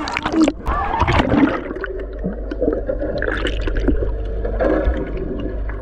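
Water in a pool heard from a camera's microphone underwater: splashing clicks in the first second or so as it goes under, then a muffled low rumble with bubbling and scattered clicks.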